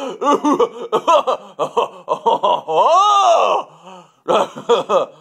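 A man's voice making exaggerated, wordless vocal sounds: a run of quick choppy syllables, then a long drawn-out vowel that rises and falls in pitch about three seconds in, and a few short syllables near the end.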